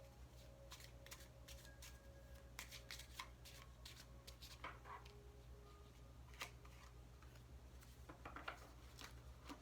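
Oracle cards shuffled by hand, faint and irregular soft card clicks and flicks over a low steady hum.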